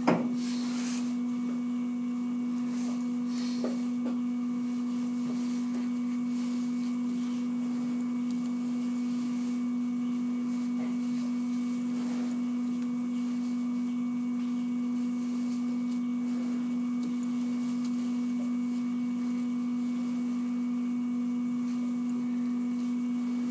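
Tool post grinder running steadily with a constant high hum, its mounted grinding wheel set up for internal grinding of a collet chuck bore on the lathe. A few faint clicks.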